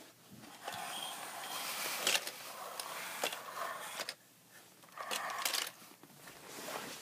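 Handling noise from a plastic toy car-hauler truck loaded with die-cast cars: rubbing and scraping with a few light clicks, in two stretches with a short lull in between.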